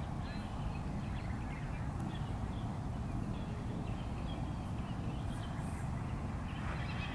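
Steady low outdoor rumble, with faint bird calls now and then.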